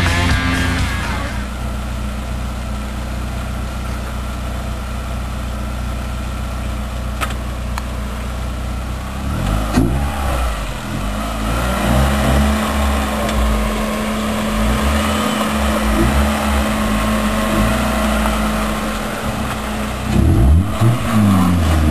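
Opel Tigra's four-cylinder petrol engine idling steadily, then revved about ten seconds in and held at a higher, steady speed. Near the end it revs up and down again as the car pulls away.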